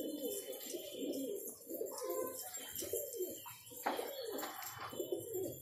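A flock of domestic pigeons cooing, several birds calling over and over with overlapping calls, and a couple of short noises in between.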